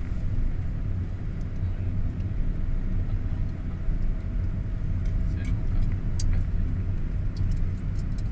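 Steady low rumble of a moving vehicle, engine and road noise heard from on board as it drives along.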